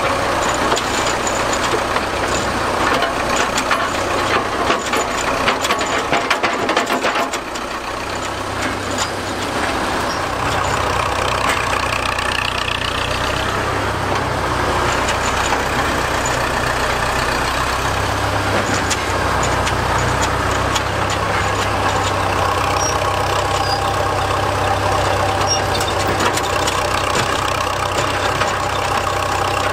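Priestman Tiger cable excavator working: its engine running, with a run of clattering knocks from the machinery and bucket for about the first seven seconds. After that the engine settles into a steady, even run.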